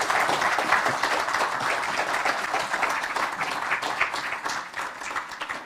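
Audience applauding: many hands clapping together, dense at first, then thinning and dying away near the end.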